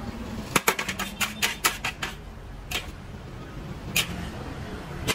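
Metal spatula clacking and scraping against a steel wok as fried rice is scooped out and served. A quick run of clicks comes in the first two seconds, then single knocks a few times.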